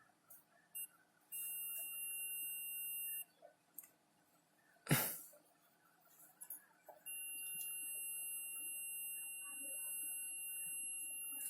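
Digital multimeter's continuity beeper: a few short chirps, then a steady high beep of about two seconds, a sharp knock about five seconds in, then a longer beep of about five seconds. The beep shows that the re-soldered speaker connection conducts.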